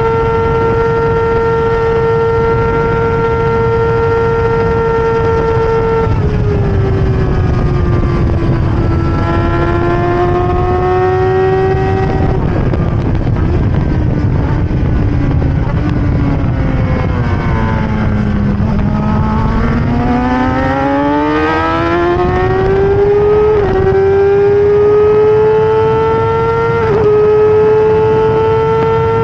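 BMW S1000RR inline-four engine in a Stohr WF1 sports racer at racing speed. It holds a high, steady pitch for about six seconds, drops in steps as it slows to its lowest pitch about two-thirds through, then climbs back up through quick upshifts.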